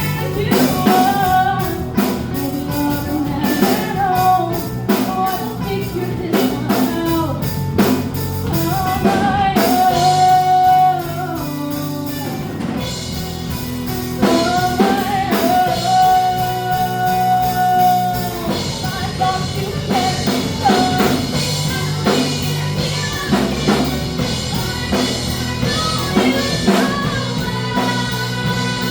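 Rock band playing, with singing over a drum kit and guitar; the singer holds long notes about ten and fifteen seconds in.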